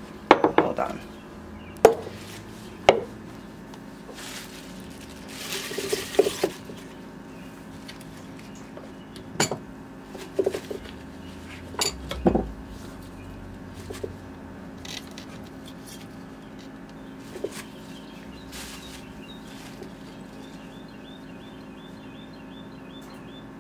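Scattered knocks and clinks of a plastic blender cup being handled and filled with kale and pineapple chunks, with a metal spoon, at irregular intervals. There is a brief rustle about six seconds in.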